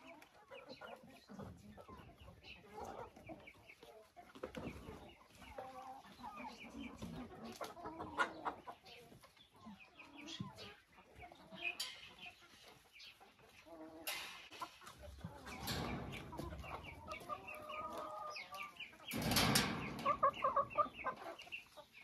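Domestic chickens clucking, with many short calls scattered throughout. Two louder bursts of noise come about two-thirds of the way through and again near the end.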